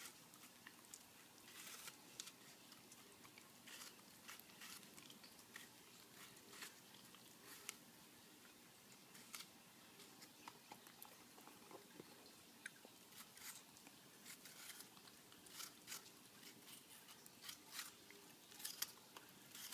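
Miniature schnauzer biting and chewing a piece of apple, with faint, irregular crunches a few times a second and a louder bite near the end.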